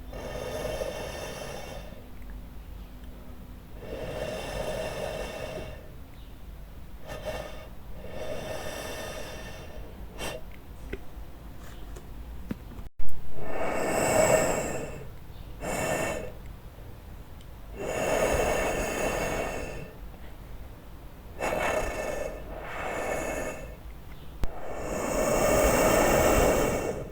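A series of about a dozen breathy, raspy hisses of half a second to two seconds each, spaced irregularly. They get louder in the second half, and a sharp click-like peak comes just before the middle.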